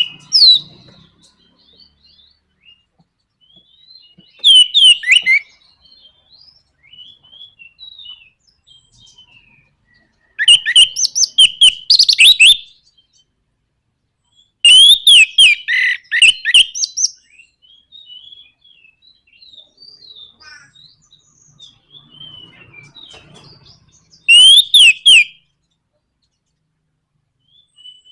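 Orange-headed thrush (anis merah) singing: soft, varied high warbling phrases broken four times by loud, rapid rattling bursts (nraktak) of one to two seconds each.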